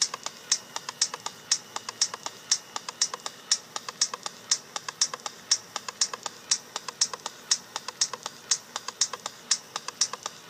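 Electronic music intro of dry clicking percussion alone, in a strict rhythm: the loudest clicks come about twice a second, with quicker, lighter ticks between them.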